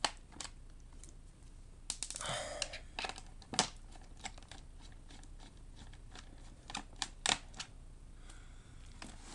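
Scattered small clicks and taps of screwdriver and screw work on a laptop case as its screws are removed one by one, with a short rustling scrape about two seconds in.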